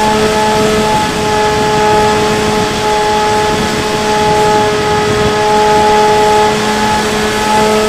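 Bixler 3 RC plane's electric brushless motor and pusher propeller running at a steady pitch, heard from an onboard camera, with heavy wind rush over the microphone. The motor tone eases briefly about a second in and again near the end.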